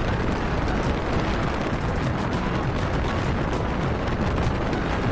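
Steady rush of wind buffeting the microphone on a moving motorcycle, with the bike's engine and road noise underneath.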